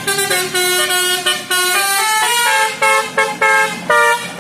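Tour bus's telolet basuri multi-tone horn playing a quick tune of short notes that step up and down in pitch.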